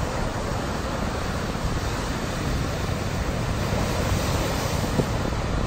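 Rough sea surf breaking on a beach: a steady rush of waves and foam, with wind on the microphone adding a low rumble.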